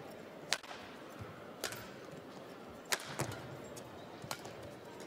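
Badminton rackets striking a feather shuttlecock in a rally: sharp, short hits about a second apart, over a low hum of the arena.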